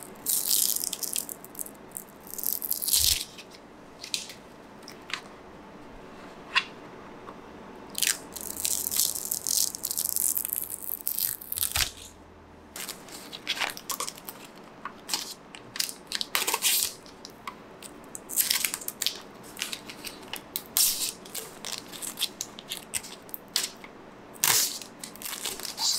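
Protective plastic film being peeled off a new router and handled: irregular crackling and crinkling with sharp bright snaps, in uneven bursts.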